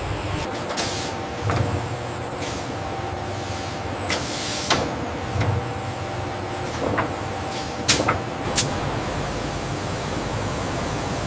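Factory machinery running with a steady hum, broken by several short, sharp hisses and clicks of compressed air, the loudest about eight seconds in.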